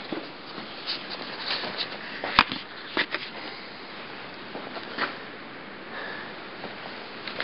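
Handling noise as the camera is moved and set down: light rustling and a few sharp clicks and knocks, the loudest a single sharp click about two and a half seconds in. No engine is running.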